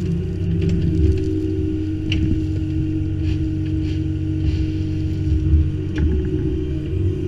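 Kubota U25-3 mini excavator's diesel engine running steadily while the hydraulic arm swings and the bucket tips out a load of crushed stone, with a few short clatters.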